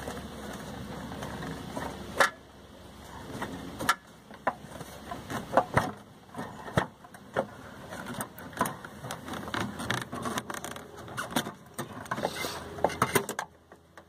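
Scattered sharp plastic clicks and knocks as the Freelander 1's clutch master cylinder is twisted a quarter turn and worked out of the bulkhead by hand, with its pipe rattling against the engine bay. A low steady hum sits under the first two seconds.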